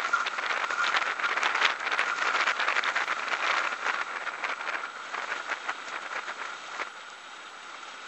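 Wind buffeting the camera microphone on an exposed mountain ridge: a gusty, crackling rumble that eases off in the second half.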